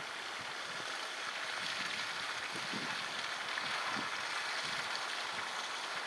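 Steady rushing outdoor background noise, with a few faint low bumps.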